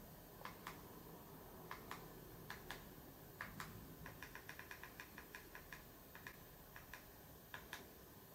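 Faint plastic button clicks, mostly in close pairs, with a quick run of about a dozen clicks around the middle, like a remote control's buttons being pressed repeatedly.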